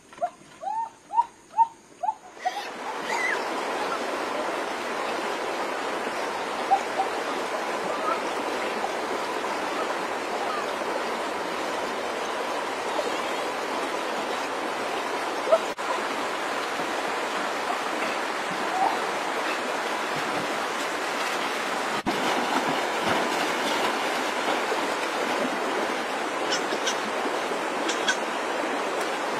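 Shallow muddy stream flowing, a steady rush of water that comes in about two and a half seconds in, after a few short high calls.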